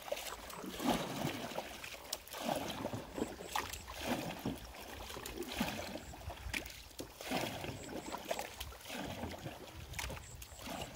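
Lake water splashing and sloshing in short, irregular bursts around a swimmer and the boat, over a steady faint lapping.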